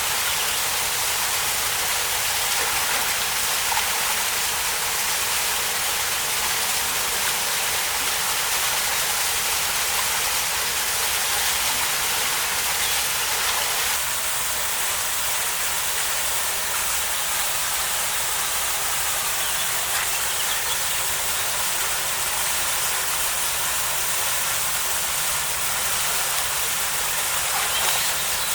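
Steady rush of a small mountain waterfall pouring into a pool, changing slightly in tone about halfway through.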